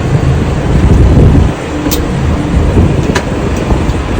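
Tractor running, heard from inside the cab: a steady low rumble with a few sharp clicks.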